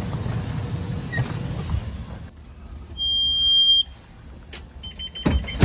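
Low rumbling handling noise, then about three seconds in a single loud, steady high beep lasting under a second, and near the end a click with a shorter beep: the 2021 Blue Bird Vision electric school bus instrument cluster chiming as it powers up at ignition initialization.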